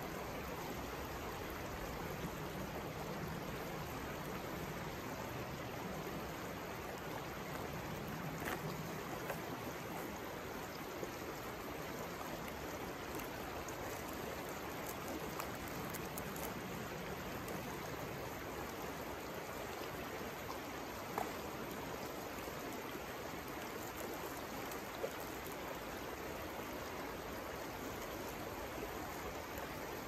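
Steady flowing water of a stream, with a few faint clicks here and there.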